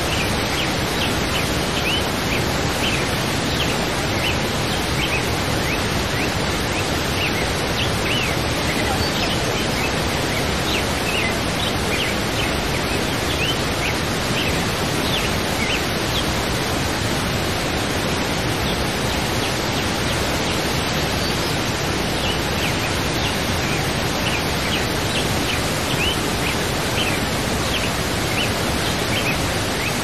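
Steady rush of a waterfall pouring into a pool, with many short, high bird chirps scattered over it.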